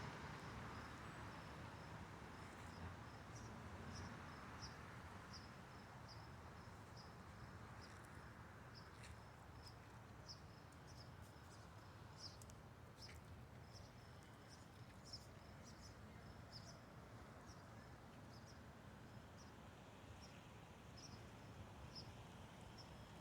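Faint insect chirping: short high chirps repeated evenly, about two a second, over a low steady background rumble.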